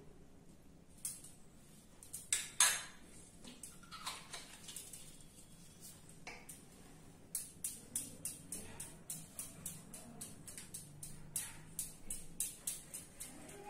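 Pancake batter being stirred in a bowl, the utensil clinking against the bowl's side: a few louder clatters about two seconds in, then from about halfway a steady run of roughly three clinks a second.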